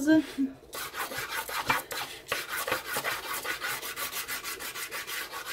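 A dry soft pastel stick rubbed back and forth on paper, a quick, even run of scratchy strokes, several a second, starting about a second in.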